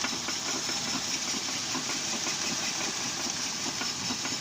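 Toyota Altis 3ZZ engine running, with a fast, irregular clatter of knocks from the driveline that is put down to a worn inner CV joint. It is loud even with the steering held straight.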